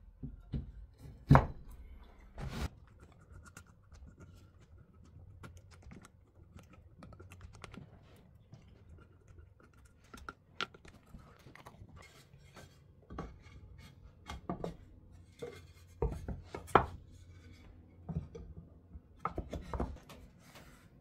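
Irregular knocks, taps and scraping from hand woodworking on wooden pieces, with a sharp knock about a second in standing out as the loudest.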